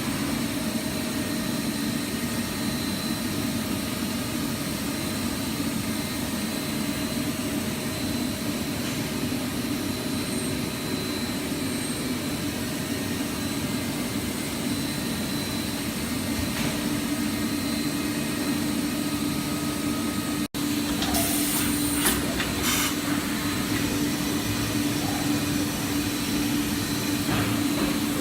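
Mazak Integrex 300-IVST CNC multi-tasking turning center running under power: a steady machine hum with a steady low tone. After a short break about two-thirds of the way through, the tone is stronger and a brief cluster of clicks and rattles is heard.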